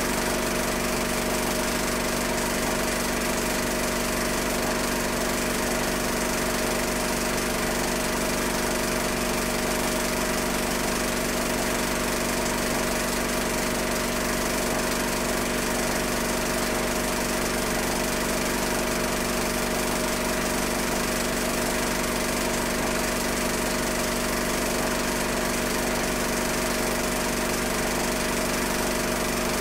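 A steady mechanical whirr with a constant hum, unchanging throughout, with no rise, fall or separate events.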